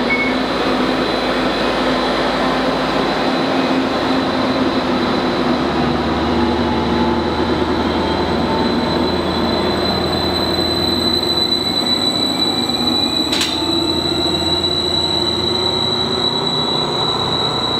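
Stadler Class 755 FLIRT bi-mode train pulling away from a station platform, running on its diesel power pack, with a steady high whine that grows louder in the second half. A single sharp click sounds about thirteen seconds in.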